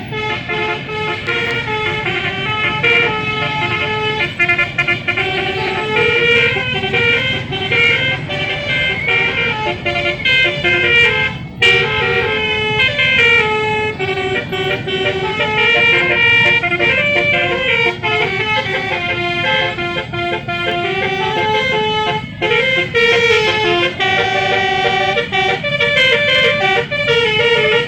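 Basuri telolet multi-tone bus horn playing a continuous melody: several horn tones sounding together and stepping quickly from note to note, with a brief break about a third of the way through.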